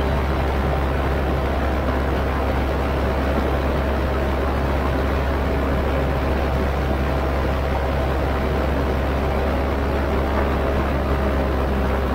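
Paramotor engine and propeller droning at a steady cruise setting, with a low hum and rushing air noise that do not change.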